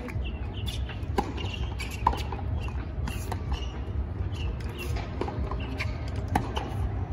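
Tennis rally on a hard court: a tennis racket strikes the ball and the ball bounces on the court, making sharp knocks roughly once a second.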